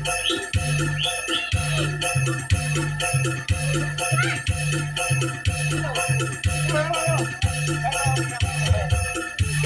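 Loud dance music for a bantengan performance: a steady bass drum beat with a repeating bass note, held tones, and jingling bells throughout.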